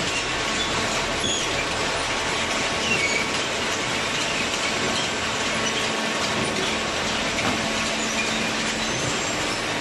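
Hydraulic cardboard baler running: a steady, even machinery noise with a faint hum, and a few short high squeaks in the first few seconds.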